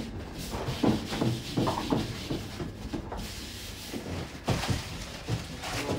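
Irregular rubbing and scraping with light knocks and thuds: dough being worked and rolled out on a wooden work table.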